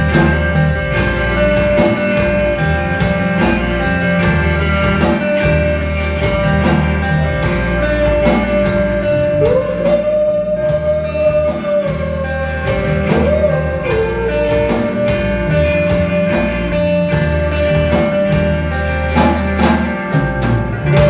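Live blues-rock band playing a slow blues: an electric guitar solo of long held notes, bent up in pitch about halfway through, over drum kit with cymbals and bass.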